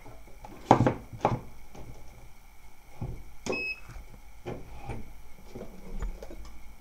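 Hot air rework station being switched on and handled: several sharp clicks and knocks, the loudest about a second in, and a short electronic beep about three and a half seconds in.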